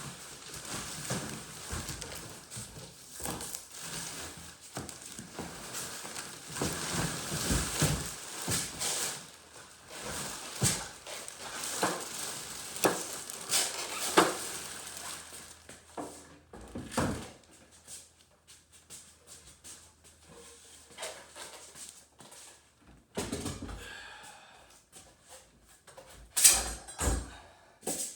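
Plastic wrapping and packaging rustling, with many small knocks and thunks, as a new miter saw is unpacked and handled. The rustling dies away about halfway through, leaving scattered knocks, with a few sharper ones near the end.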